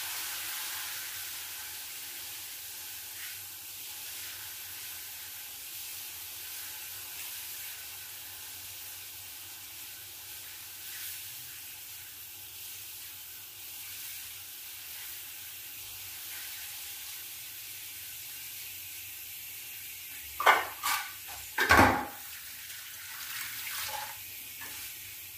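Chilla batter sizzling in a frying pan on a gas stove: a steady, soft frying hiss. About twenty seconds in, a few sharp knocks and clatters.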